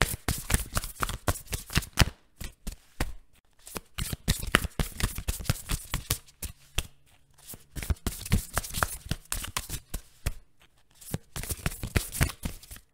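A deck of tarot cards being shuffled by hand: rapid papery flicks and slaps of the cards, in several bursts with short pauses between them.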